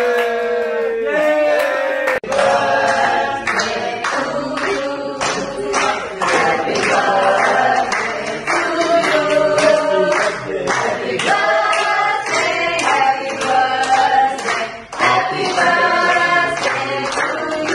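A group of men and women singing a birthday song together and clapping in time. The first two seconds hold a single voice, then the group singing starts abruptly.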